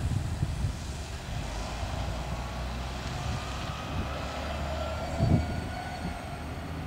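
Mercedes-Benz Citaro G articulated bus with a compressed-natural-gas engine driving away into the distance, a steady low engine rumble with a faint whine. A short thump about five seconds in.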